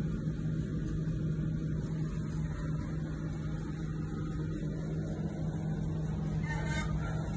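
Perkins 1106A-70TAG3 six-cylinder turbocharged diesel engine of a 200 kVA generator set running steadily at its governed 1500 rpm, heard up close as an even drone with a strong low hum. A brief higher-pitched noise cuts in near the end.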